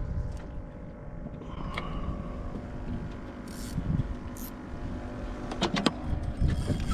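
Grey plastic cooler lid on a boat deck being shut, with a few sharp clicks as it closes near the end. Under it runs a low, uneven rumble.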